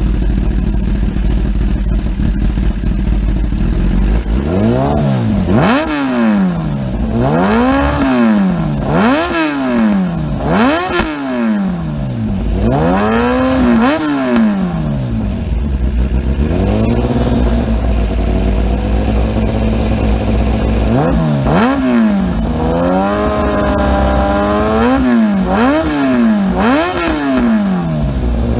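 2015 Kawasaki ZX-10R's flatplane inline-four through an SC-Project exhaust, idling and then revved in quick throttle blips, the revs rising and falling about once a second. It settles back to idle for a few seconds past the middle before the blipping starts again.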